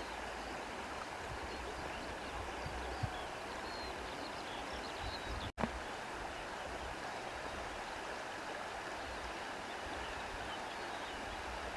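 Steady rush of a flowing stream, with faint high chirps over it; the sound cuts out for an instant about halfway through.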